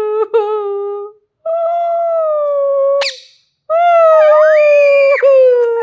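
Pet green parrot giving long, drawn-out whining calls, three in a row, with a short sharp squeak about three seconds in.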